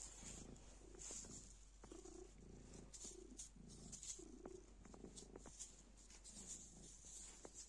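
Domestic cat purring softly in a steady, pulsing rhythm, with a few faint brief crinkles from the plastic bag it is playing with.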